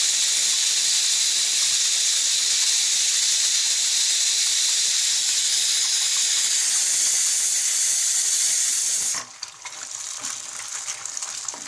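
Pressure cooker whistle blowing: steam venting in a loud, steady hiss for about nine seconds, then cutting off suddenly. The whistle is the sign that the cooker of rice has come up to full pressure.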